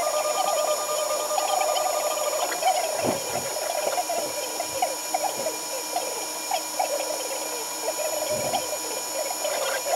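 A 3D printer at work: its stepper motors chirp and squeak in many quick, short tones that rise and fall in pitch as the print head moves back and forth laying down the first layers, over a steady hum. A soft low thump comes about three seconds in and again near the end.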